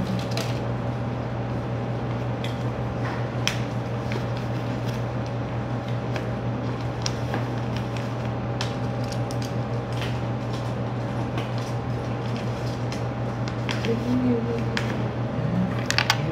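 A steady low machine hum, with scattered short clicks and knocks from hands handling things close to the microphone.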